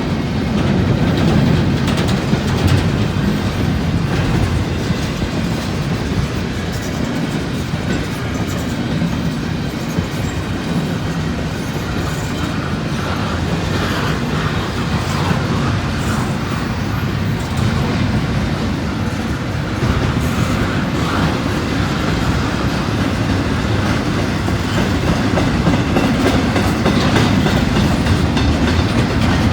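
A long freight train rolling past, its cars' wheels clicking over the rail joints in a steady rumble.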